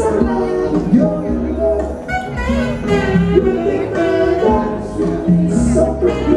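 Band music with bass, guitar and a lead melody line, moving note to note over a steady low bass.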